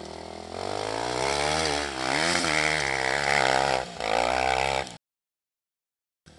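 Honda XR 250 Tornado trail motorcycle's single-cylinder engine revving up and down over and over as the bike digs in, its rear wheel spinning in the dirt. It cuts off suddenly about five seconds in.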